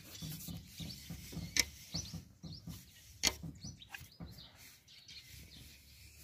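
Metallic clicks and knocks of a spanner turning a VAZ-2106 engine over by hand, with two sharper knocks, while birds chirp now and then.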